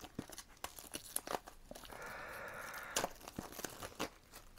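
Cellophane shrink wrap being torn open and peeled off a CD box set: a run of sharp crackles and crinkles, with a longer drawn-out tear about two seconds in.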